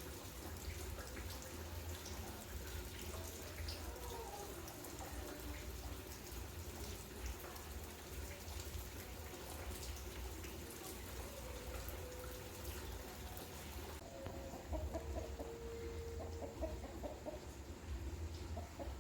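Chickens clucking, with a quick run of clucks in the last few seconds, over a steady low hum.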